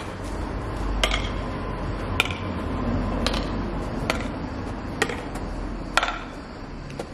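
Badminton rally: rackets striking a shuttlecock back and forth, a sharp hit about once a second, seven in all.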